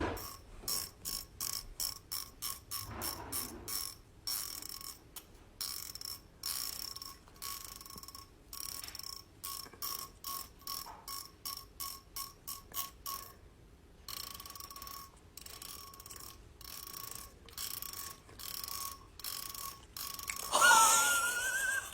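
Teeth of a comb being scraped over and over with a fingernail, a rapid rhythm of about three short ratcheting strokes a second, each with a thin high ring, with a brief pause around the middle. A louder wavering voice comes in near the end.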